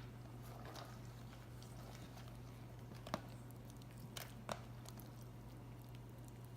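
Clear-glue slime being kneaded by hand: faint sticky squishes with a few short sharp pops or clicks about three, four and four and a half seconds in, over a steady low hum.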